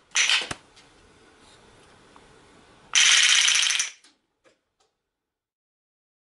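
Handmade wooden select-fire rubber band machine pistol firing: a short rattling burst right at the start, then, about three seconds in, a full-auto burst of about a second as its rotary mechanism rapidly releases the remaining bands with a dense ratcheting clatter. A couple of faint clicks follow.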